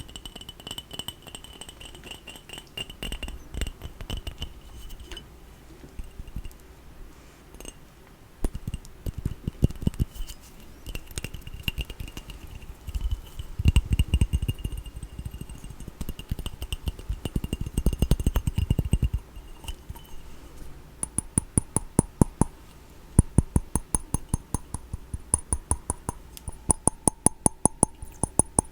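Small cat-themed trinkets being handled and tapped for ASMR: clinking and jingling, with quick runs of rapid, ringing taps in the last third.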